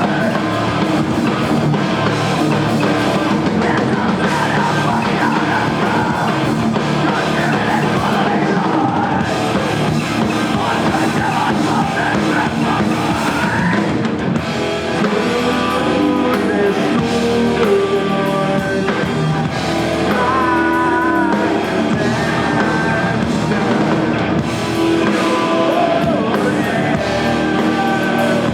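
Live rock band playing loud, with drum kit, guitar and vocals.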